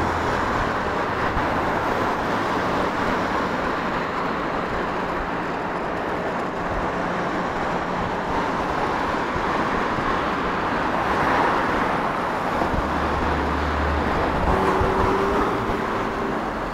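Steady rush of wind and road noise from riding an Inmotion L9 electric scooter flat out at its top speed of about 36–37 km/h. A deeper rumble joins briefly about thirteen seconds in.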